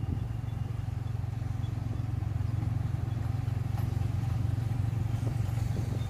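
A small engine running steadily, a low even drone with a fast pulse.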